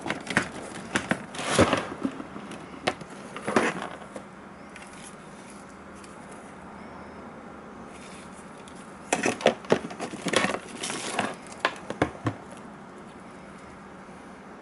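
Irregular clicks, taps and knocks of hands handling a laptop's plastic casing and small parts, in two bursts with a quiet stretch of steady hiss between them.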